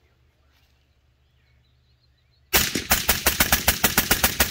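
Suppressed 14.5-inch AR-15 with a YHM Phantom suppressor fired in a rapid string of shots, about six a second, beginning about two and a half seconds in.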